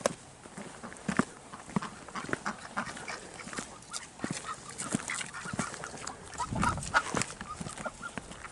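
Farm animals eating feed from a pan: irregular crunching and clicking, with a short low animal call about six and a half seconds in.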